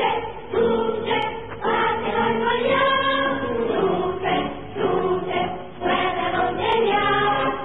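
Music with a choir singing phrases of long held notes.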